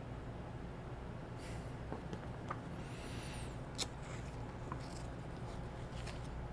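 Faint clicks and soft rustles of a plastic disc case and its paper cover being handled, over a steady low hum.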